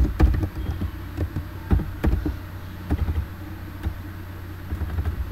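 Computer keyboard being typed on, irregular key clicks, over a steady low hum.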